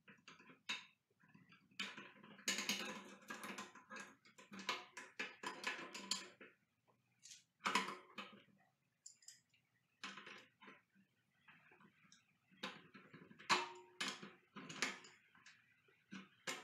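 Adjustable wrenches clicking, knocking and scraping on a compression fitting and copper pipe as a flexible water heater connector is tightened: irregular clusters of sharp metallic clicks, a few with a brief ring.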